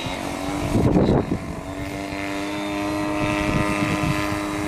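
Model jet turbine (Jet Central Super Bee) running steadily in the R.C. F-16 on the runway, a steady pitched whine that sets in about a second and a half in, over rumbling gusts of wind on the microphone, loudest about a second in.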